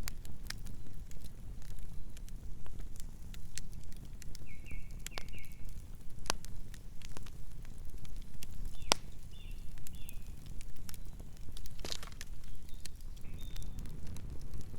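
Campfire burning: wood crackling and popping in irregular sharp snaps over a low, steady rumble of flames.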